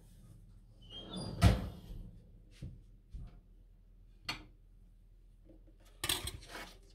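A kitchen door or cupboard shuts with a single thump about a second and a half in. A few light clicks follow as a knife touches a plate.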